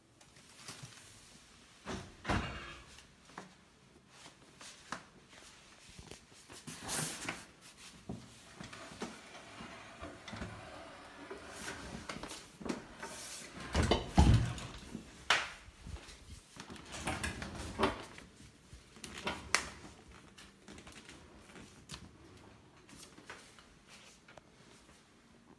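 A series of irregular knocks, clicks and rattles from objects being handled, the loudest knocks about 2, 7, 14 and 18 seconds in.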